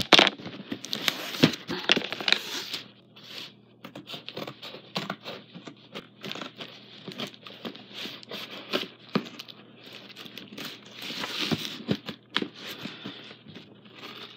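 Cardboard shipping box being opened by hand: tape tearing and cardboard and packing material rustling and crinkling, in irregular bursts with scattered sharp clicks and knocks. The loudest bursts come right at the start and again about eleven seconds in.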